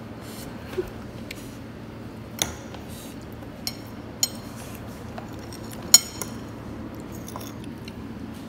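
Metal forks clinking against plates while cake is eaten: about six short, sharp clinks, the loudest about six seconds in.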